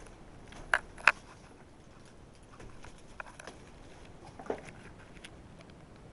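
A few sharp clicks and knocks over a faint hiss: two close together about a second in, another a little after four seconds, and smaller ticks between.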